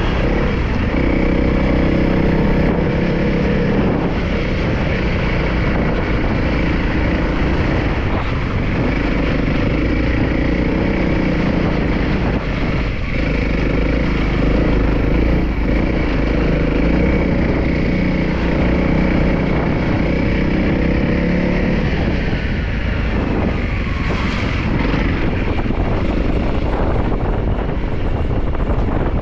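Trail motorcycle engine running as the bike is ridden. The note comes in loud at the start, holds steady for most of the time, and eases off a little over two thirds of the way through.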